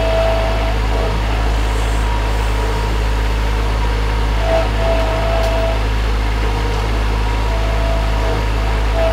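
Skid steer loader's engine running steadily, with a thin high whine that comes and goes several times.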